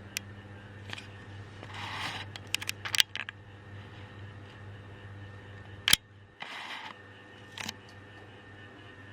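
Sekai DFN 1202 12-inch table fan's motor humming steadily, with a series of sharp clicks and two short rustles from the fan being handled; the loudest click comes about six seconds in.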